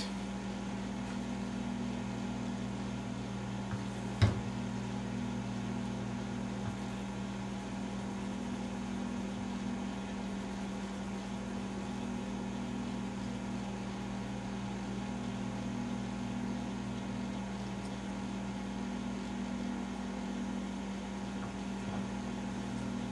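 Steady low electrical hum in a small room, with a single sharp click about four seconds in.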